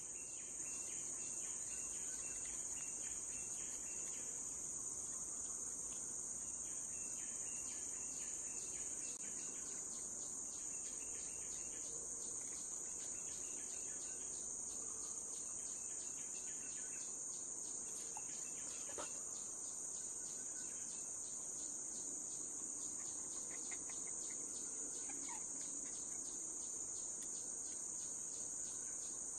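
Steady, high-pitched insect chorus that does not let up, with a fainter, regular ticking insect call beneath it.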